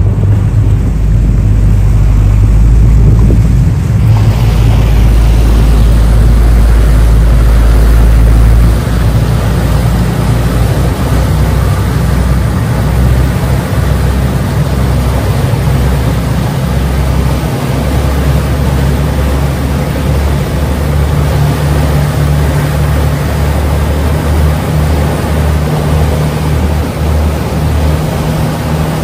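Car ferry under way: the ship's diesel engines drone steadily, with water wash and wind over it. About nine seconds in, the deepest part of the drone eases a little and then holds steady.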